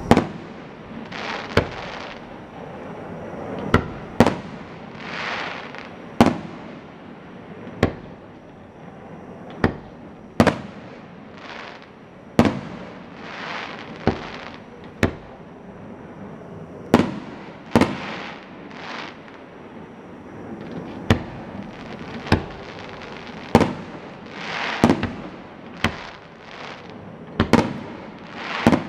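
Aerial fireworks shells launching and bursting: about twenty sharp bangs at irregular intervals, with hissing swells between them.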